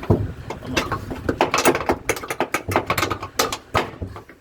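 Irregular clicking, knocking and rattling of a washing machine's suspension shock absorber being worked loose and pulled from its mount by hand.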